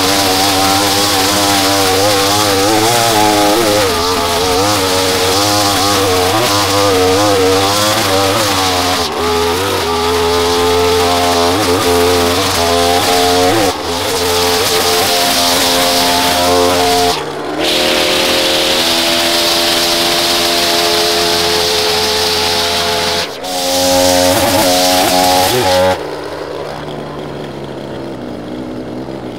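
Small gasoline lawn-equipment engine running under load, its pitch wavering as it works. It breaks off briefly several times. For the last few seconds a quieter, lower-pitched engine runs.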